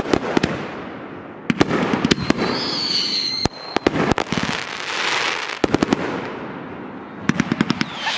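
Consumer aerial fireworks going off in a string of volleys: five clusters of sharp bangs and crackles, roughly every one and a half to two seconds, with hissing between them. A brief high whistle sounds about three seconds in.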